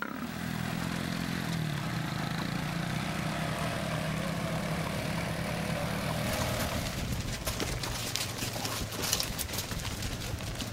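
A motor vehicle engine running steadily, its pitch edging up about a second in. From about six seconds in, many sharp clicks and knocks join it.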